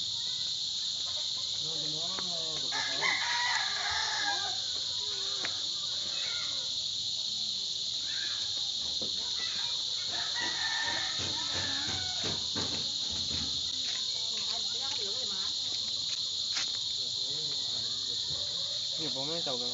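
Steady high-pitched insect chirring, with a rooster crowing twice: about three seconds in and again around ten seconds.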